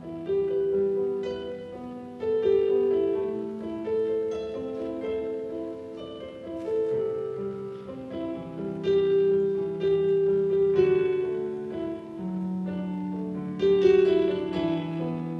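Slow piano introduction with no singing: chords and single notes struck every second or two and left to ring.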